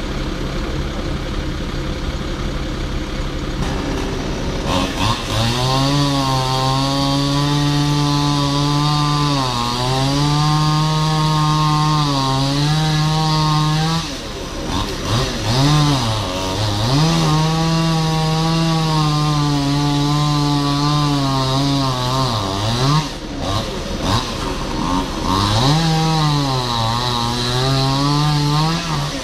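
A steady engine hum for the first few seconds, then a two-stroke chainsaw cutting into a storm-felled tree trunk, its pitch sagging as the chain bites into the wood and climbing again as it eases, with short breaks about 14 and 23 seconds in.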